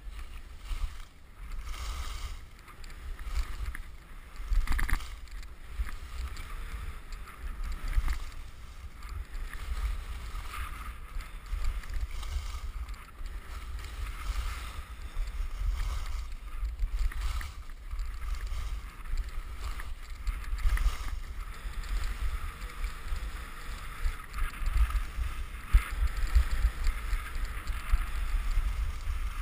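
Wind buffeting the camera's microphone with a fluctuating low rumble during a downhill ski run, over the scraping hiss of skis on packed snow.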